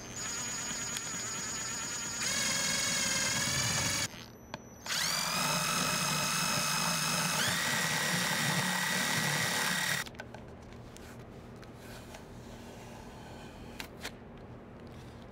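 Electric drill boring holes into a wooden box panel with a twist bit: the motor whines in two runs of a few seconds, pausing briefly about four seconds in. The second run spins up and steps higher in pitch partway through, and the drill stops about ten seconds in, leaving only faint handling clicks.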